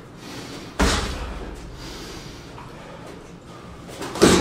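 Two sharp smacks of boxing-glove punches landing during sparring, one about a second in and a louder one near the end, each ringing on briefly in the gym.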